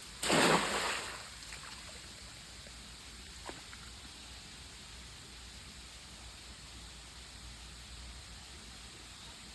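A splash as something thrown into the water lands, just after the start and dying away within a second, then steady running-water noise with one small click a few seconds in.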